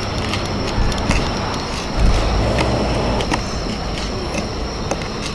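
A knife tapping and clicking on a wooden cutting board as a hairtail fish is cut into pieces: scattered short, sharp clicks over a steady low rumbling background noise.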